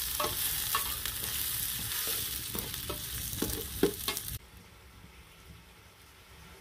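Sliced onions sizzling in oil in an aluminium pot over a wood fire, with a metal spoon stirring and scraping against the pot in irregular strokes. The sound cuts off sharply a little over four seconds in, leaving a quiet background.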